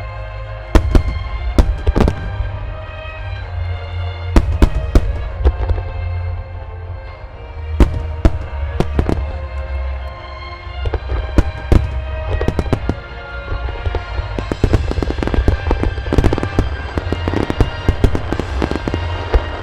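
Aerial firework shells bursting with loud booms and crackle, some single and some in quick clusters, over music playing throughout. In the last few seconds the bursts come thick and fast as a rapid crackling volley.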